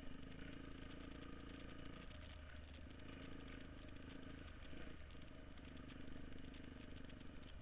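Engine of an off-road vehicle running steadily at low speed as it rides along a dirt trail.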